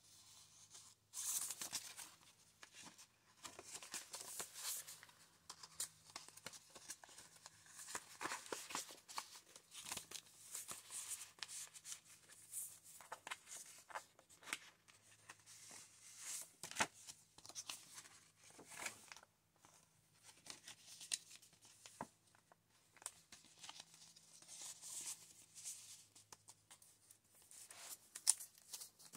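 Paper and card pages of a thick handmade junk journal being turned and their flaps and tucked cards lifted, making irregular rustles, flicks and soft slaps of paper. A faint steady low hum runs underneath.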